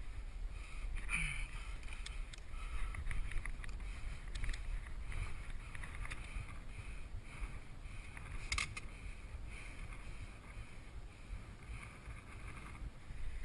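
Wind buffeting the microphone as a steady low rumble, with scattered scrapes and clicks of hands and boots on loose rock during a rock scramble, one sharper knock about eight and a half seconds in.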